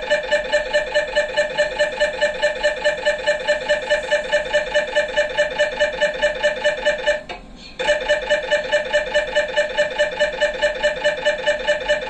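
MRI scanner's gradient coils running a diffusion-weighted (DWI) sequence: a loud pitched buzzing that pulses evenly about three to four times a second. It stops briefly about halfway through and then resumes at the same rhythm.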